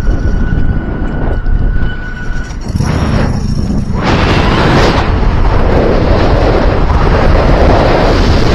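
Wind buffeting the microphone: a loud, continuous low rumble that turns louder and hissier about four seconds in.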